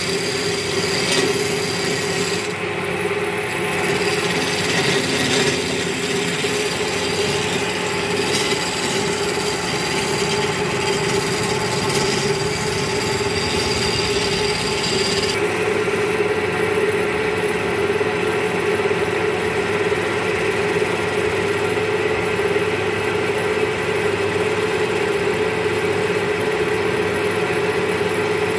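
Wood lathe running with a steady motor hum while a hand-held chisel scrapes and cuts the spinning wooden blank, giving a rough scraping hiss. About halfway through the high scraping hiss stops abruptly and the lathe keeps running.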